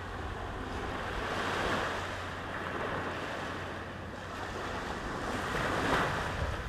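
Sea waves washing up a sand beach, the surf swelling about two seconds in and again, louder, near the end, with wind buffeting the microphone.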